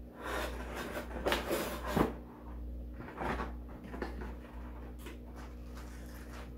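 Cardboard box being handled: scraping and rustling as the boxed telephone is slid back in and the flaps worked closed, with a sharp knock about two seconds in and a few lighter knocks after, then quieter handling.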